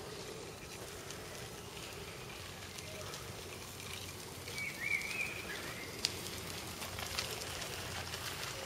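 Outdoor woodland ambience: a steady rustling hiss with scattered light clicks, and a short high wavering call about five seconds in.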